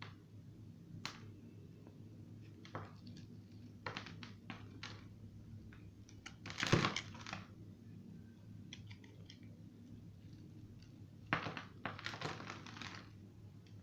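A knife cutting into dry soap, giving short crisp crunching and crumbling sounds: a few single clicks, a louder run of crunches about halfway through, and another cluster near the end, over a steady low hum.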